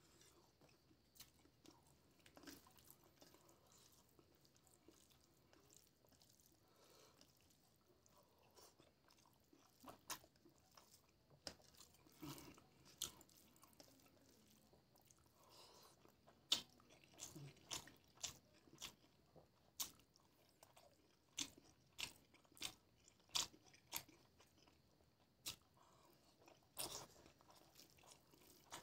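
Eating sounds from a hand mixing rice and egg curry on a stainless steel plate: soft squishes and sharp clicks that come more often in the second half, with chewing.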